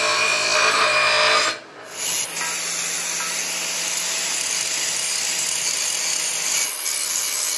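A bench grinder grinding a welded sheet-steel box, its motor humming under the grinding. After a cut about a second and a half in, a corded angle grinder grinds the same steel box steadily, with a high whine over the grinding.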